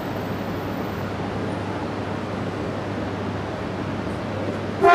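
Steady hum and machinery noise of a Shinkansen train standing at a station platform, then a Shinkansen horn starts suddenly near the end as a loud, steady, multi-tone blast.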